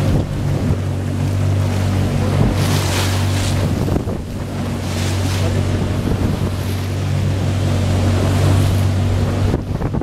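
Boat engine running with a steady hum, mixed with wind buffeting the microphone and the rush and splash of choppy sea. The engine hum drops out near the end, leaving wind and water.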